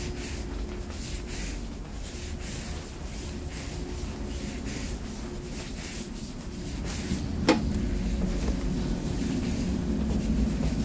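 Steady low rumble and hum inside a JR 101 series electric train car, with one sharp knock about seven and a half seconds in, fitting the sliding gangway door between cars shutting. The rumble grows louder over the last few seconds.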